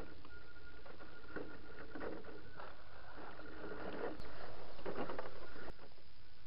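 Tamiya CC-01 radio-controlled crawler climbing over rocks. Its electric motor and gears whine in a steady high tone, while the tyres scrabble and knock on stone in short clattering bursts. Near the end the truck tips over onto its side.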